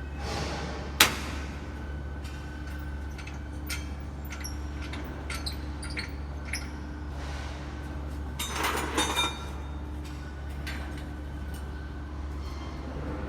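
Scattered clicks and light clinks of objects being handled, with one sharp click about a second in and a short clatter around nine seconds in, over a steady low hum.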